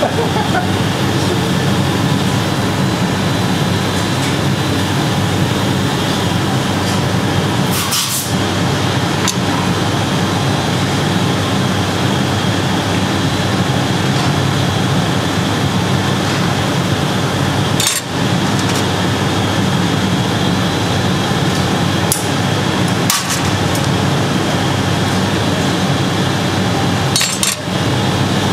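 Steady roar of a glassblowing workshop's furnace and burner blowers. A handful of sharp metal clinks from tools and the steel blowpipe are heard over it, the clearest about eight seconds in, at eighteen and twenty-three seconds, and a short cluster near the end.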